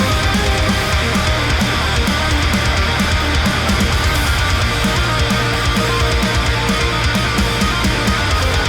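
Heavy rock music with distorted electric guitar, bass and a fast, steady drum beat.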